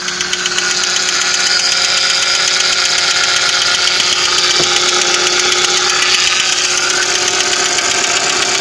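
Audi engine running with a knocking rattle. The engine had run very low on oil, which is very black: 2 litres added only just reach the dipstick tip. It gets louder over the first half-second, then stays steady.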